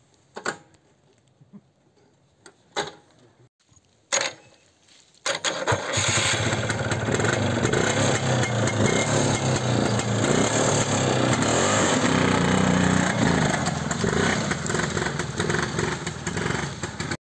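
Zim 350 ATV engine: a few faint knocks, then the engine catches about five seconds in and runs steadily as the quad moves off. It cuts off suddenly near the end.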